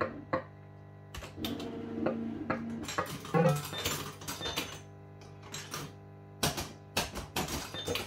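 JPM Hot Pot Deluxe fruit machine playing its electronic tones and clicking as its reels stop. Near the end comes a quick run of sharp clicks as tokens are fed in and the credits count up.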